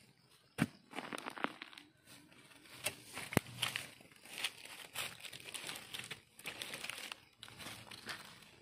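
A wooden digging stick prodding and scraping loose soil, with dry grass and leaf litter crackling and rustling, to free termite mushrooms from the ground. There are a few sharp clicks, the loudest about half a second in and about three and a half seconds in.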